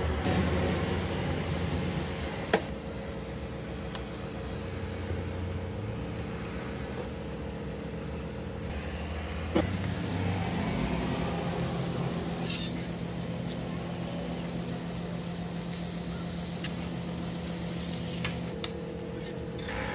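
Bacon-wrapped burger patty frying on a steel flat-top griddle, with a loud sizzling hiss for much of the second half. A few sharp metal clinks of utensils against the griddle are heard, over a steady machine hum.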